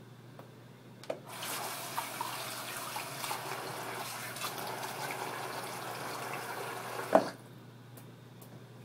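Bathroom sink tap running water into the basin for about six seconds, turned on about a second in and shut off with a clunk near the end.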